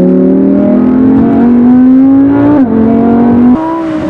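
Twin-turbo Audi R8 engine pulling hard under acceleration, its pitch climbing steadily, then dropping sharply with an upshift about two and a half seconds in and climbing again. About a second later the engine note jumps higher and turns quieter.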